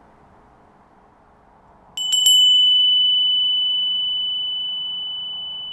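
A small hand-held metal meditation chime is struck with a quick double clink about two seconds in, then rings on in one high, clear tone that slowly fades.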